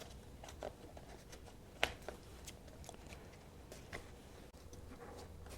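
Faint clicks and taps of hands handling parts while the tank heat shield is taken off a Honda CBR1000RR, with one sharper click about two seconds in.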